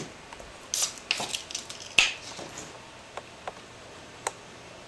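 Scattered sharp clicks and light knocks: a cluster in the first second and a half, the sharpest about two seconds in, then a few fainter single ticks.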